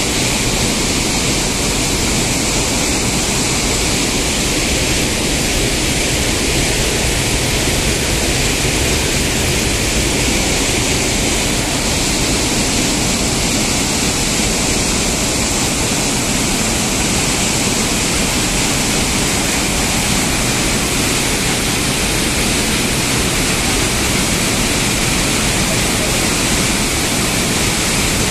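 Loud, steady rush of water pouring out of a dam's open spillway gates and churning in the channel below.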